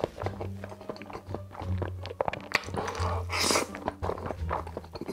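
Close-miked eating: wet chewing and mouth clicks, with a louder hissing slurp about three and a half seconds in, over background music with a low bass line.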